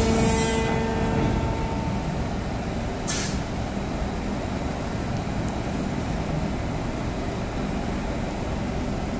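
Railway wagon shifter (traverser) running as it carries a loaded open wagon sideways between lines: a steady low mechanical rumble. A pitched tone fades out in the first second or so, and a short hiss comes about three seconds in.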